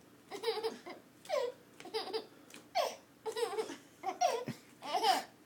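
A baby laughing in a string of short bursts, about one a second or a little faster, each falling in pitch.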